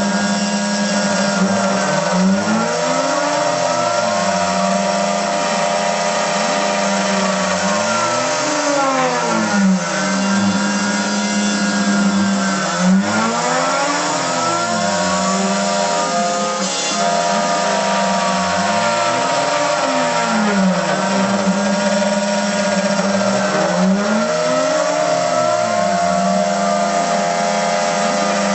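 CNC router milling 10 mm plywood. The spindle runs steadily under a cutting hiss, while the axis motors whine up and down in pitch every couple of seconds as the machine speeds up and slows down between moves.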